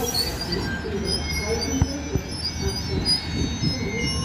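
Siemens Vectron electric locomotive hauling a container freight train slowly past. A steady low hum runs under brief, thin, high wheel squeals, with two sharp clicks about two seconds in.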